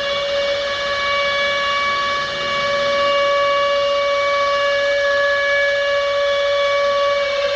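Civil defence air-raid siren sounding an attack warning: one long, loud, held tone that begins to fall in pitch near the end.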